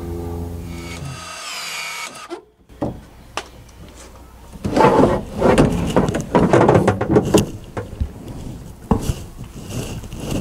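Irregular knocks, clicks and rubbing of close-up handling as the camera is moved and parts are worked in the bus's plumbing bay, loudest in the middle. A steady low hum stops about a second and a half in.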